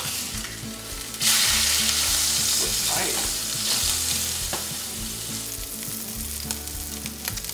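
Fish fillet searing in hot olive oil in a skillet, sizzling steadily, with a few clicks of a spatula against the pan. The sizzle jumps louder about a second in, then slowly eases.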